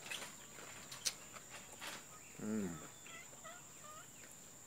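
Sharp clicks and smacks from eating rice and fried fish by hand, a short low call falling in pitch about halfway through, then a few faint high bird chirps.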